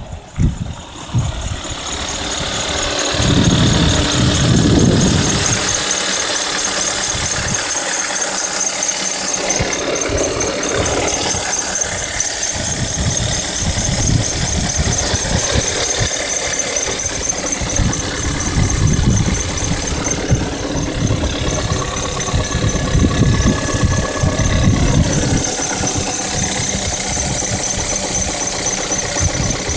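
Volkswagen Tiguan 1.4 150 hp petrol engine running, heard close up in the engine bay, with an extraneous noise under the hood that the owner is trying to trace. A thin, high, evenly pulsing whistle sits over the engine note.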